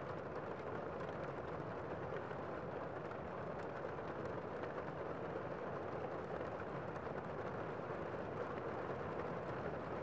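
Campfire and rain ambience: a steady rushing hiss with faint scattered crackles.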